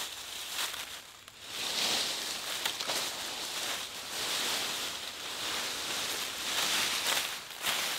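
Footsteps crunching through dry fallen leaves in the first second or so, then a steady rustling of leaves.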